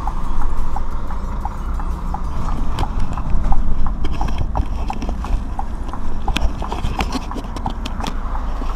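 Inside a Scania truck cab while it reverses a trailer onto a loading dock: a low diesel engine rumble under a steady light ticking, about two ticks a second. Knocks and rubbing from the camera being handled come in over it from about three seconds in.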